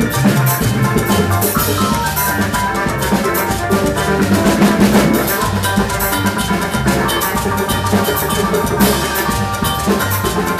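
Afro-Latin band playing live: drum kit and percussion keep a steady groove over a repeating bass line, with pitched melodic parts on top.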